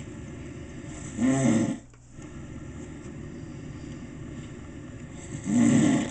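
An elderly man snoring in his sleep: two loud snores about four seconds apart, each lasting about half a second, over a steady background hiss.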